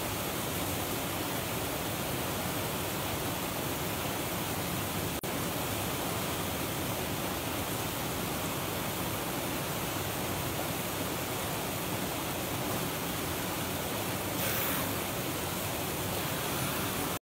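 Steady rush of running water from a small, nearly frozen waterfall and stream, with a brief break about five seconds in; it cuts off suddenly near the end.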